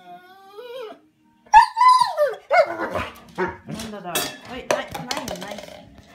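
Bernese mountain dog 'talking': a rising and falling whine about a second long, then a loud yowling call with falling pitch, followed by a string of shorter whines and barks. It is vocal protest at being kept inside while its people are out walking.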